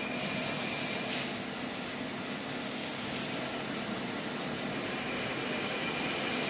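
Steady hiss and hum of a running induction shaft-insert machine, with a thin high-pitched whine held throughout.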